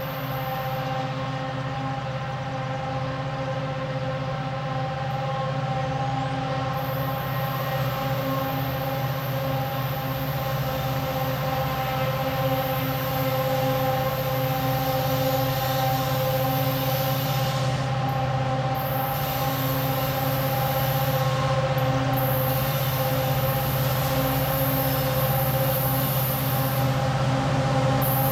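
Pair of Indiana Railroad SD9043MAC diesel-electric locomotives, with EMD 16-710 two-stroke V16 engines, working at the head of an approaching loaded coke train: a steady low engine rumble growing slowly louder, with steady higher tones held above it.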